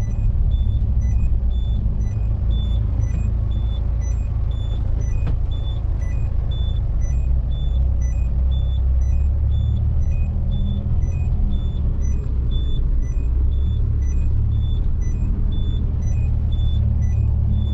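Car cabin rumble of the engine and tyres as the car rolls slowly over a rough dirt track, low and steady throughout. Over it, a faint high beep repeats about every two-thirds of a second.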